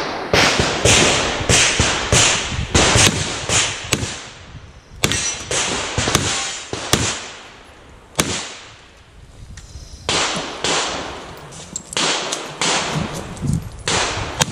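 Handgun shots fired in fast strings, several a second. There is a lull of a couple of seconds just past the middle, then another rapid string near the end.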